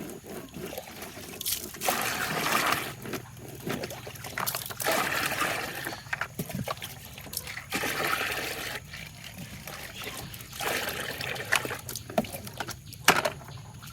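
Water splashing and trickling in bursts every few seconds while toys are being washed, with a sharp knock about a second before the end.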